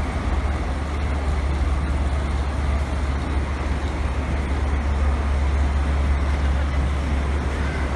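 A passenger train in motion, heard from inside the carriage: a steady deep rumble with an even running noise of the wheels on the rails.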